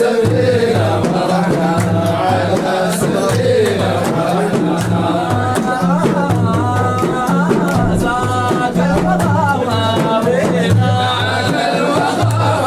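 A sung Arabic religious praise poem (Sudanese madih): a voice singing a melody over instrumental accompaniment, with a low bass note that comes and goes in a steady rhythm and light percussion clicks.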